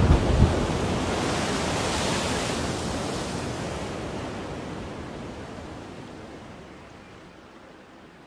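The closing ambient music track ends on a wash of ocean-surf sound that fades out slowly. A few low thuds come at the very start.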